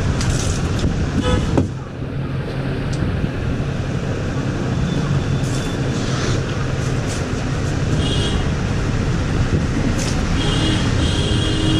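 Steady road traffic noise, with vehicle horns sounding about eight seconds in and again near the end.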